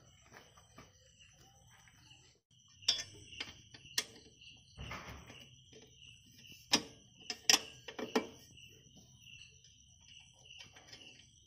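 A few sharp clicks and taps as hands work a bolt and fitting under a motorcycle, over the steady pulsing chirp of crickets.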